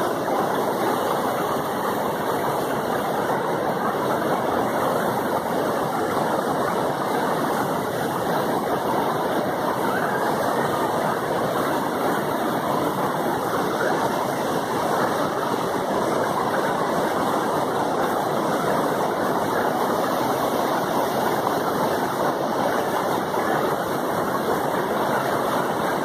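River rapids rushing over and between large boulders: a steady, even noise of white water that does not let up.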